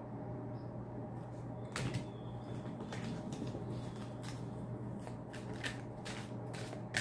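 Tarot cards being shuffled and handled: a run of irregular crisp card clicks and riffles starting about a second in, over a steady low hum.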